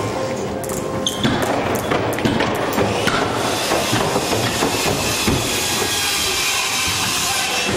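Wheels rolling over a wooden skatepark ramp, with scattered sharp clacks and knocks in the first few seconds and a steady rolling noise from about three seconds in, as a kick scooter rides across the plywood.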